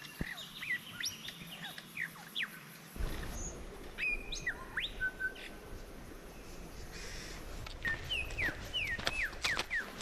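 Forest birds calling: many short whistled notes, several sliding sharply downward, with a quick run of falling notes near the end. A low rumble joins about three seconds in.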